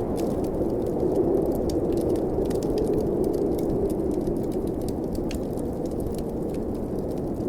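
Steady blizzard wind with a low rumbling rush, layered with a fireplace crackling in many small, irregular pops.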